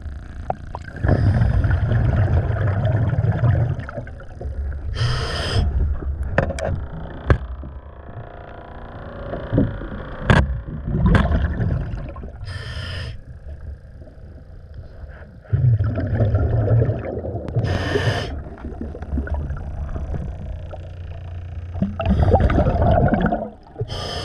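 A diver breathing through a regulator underwater. Long rumbling bursts of exhaled bubbles, a few seconds each, alternate with short hissing breaths.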